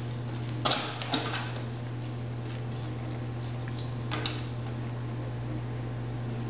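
A few light taps and clicks of a young owl's feet and a tennis ball on a hard floor as it plays with the ball: one about a second in, another just after, and a pair near four seconds in, over a steady low electrical hum.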